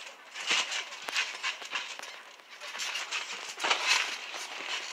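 Irregular thuds and slaps of two boys sparring in boxing gloves on a trampoline: feet landing on the mat and gloves hitting, loudest about half a second in and again near four seconds in.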